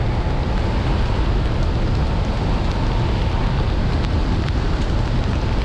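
Steady rush of airflow over the microphone of a hang glider in flight, with a few faint ticks of hail striking through it.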